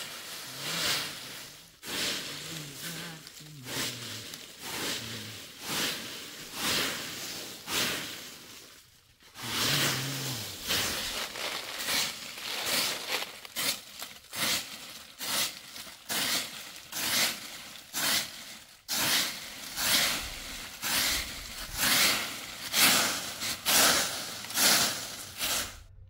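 Straw broom sweeping dry fallen leaves over dirt ground in rhythmic swishing strokes, about one a second. There is a brief pause about nine seconds in, and the strokes come quicker near the end.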